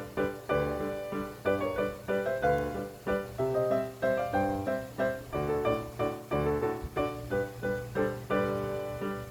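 Background piano music: a light, steady run of notes.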